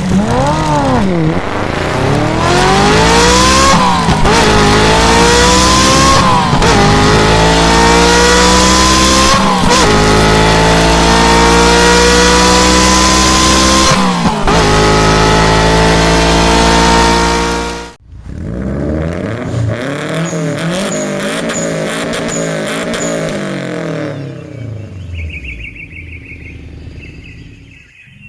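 Vehicle engine revving, its pitch rising and falling and then climbing steadily for many seconds over a loud hiss. It cuts off sharply past the middle and carries on quieter, rising and falling.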